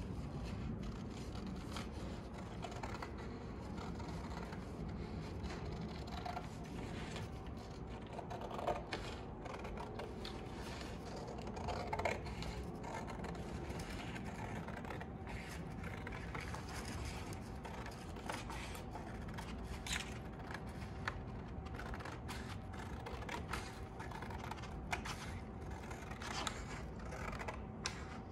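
Hand scissors snipping through poster board in a run of irregular short cuts, with the stiff paper rustling as the template is handled, over a steady low background hum.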